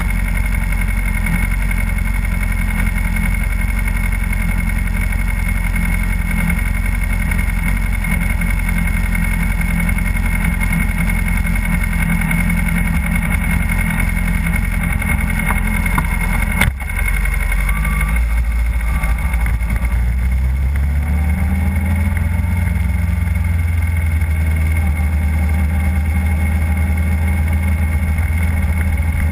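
Motorcycle engine idling steadily, with one sharp click about halfway through; a few seconds later the engine note rises as the bike pulls away slowly.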